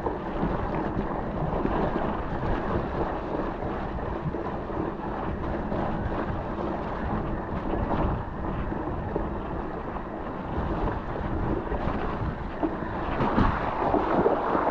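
Wind buffeting the microphone of a camera riding along on a mountain bike, over the rolling noise of the ride, with a few small knocks from the trail.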